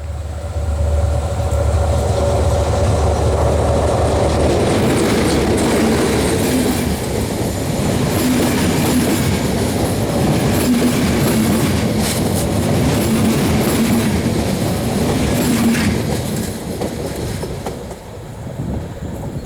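A train passing close by, its wheels clattering over the rail joints with a heavy low rumble at first. It stays loud for most of the time, then fades in the last few seconds as it moves away.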